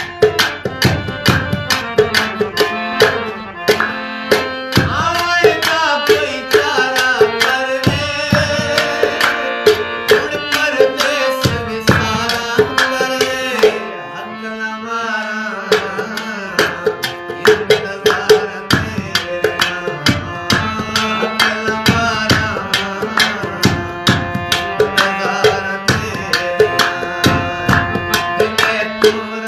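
Harmonium played with tabla accompaniment. Held reed notes and chords sound under a steady, quick run of tabla strokes.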